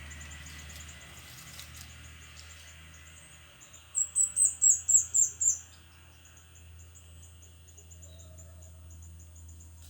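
A bird calling: a quick run of about eight high, falling notes, about five a second, starting about four seconds in, over a steady fast high ticking.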